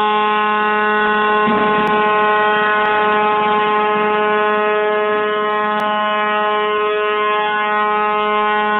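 Ship's horn sounding one long, steady blast at a single unchanging pitch.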